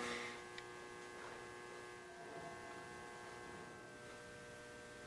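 Faint steady electrical hum made of several held tones, with a single small tick about half a second in.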